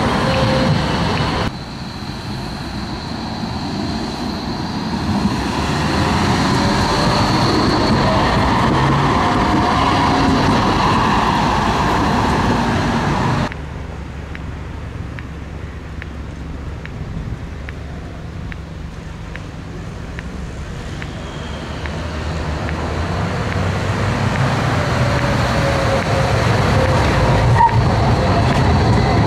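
Electric low-floor trams running on street track, heard over road traffic: wheels on the rails and a traction-motor whine that glides in pitch. Two abrupt changes in level break it up, and near the end a tram comes closer and grows louder as it passes.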